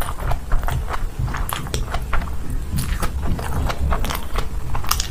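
Close-miked eating sounds: a mouthful of chicken biryani being chewed with wet smacks and clicks of the lips and mouth, coming quick and irregular over a steady low hum.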